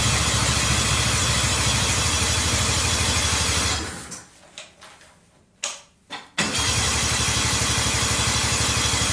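Old Ski-Doo snowmobile's two-stroke engine, just started, running steadily and then dying away about four seconds in. After a few brief bursts it catches again a little after six seconds and runs on evenly.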